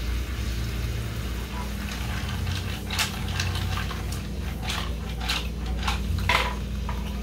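Mussel shells clattering against a metal skillet as the pan is shaken on the stove: a run of sharp rattles starting about two and a half seconds in, over a steady low hum.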